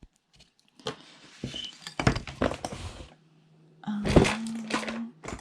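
Small hard tools and parts clicking and knocking against a work surface, in irregular bursts with the loudest knock about four seconds in.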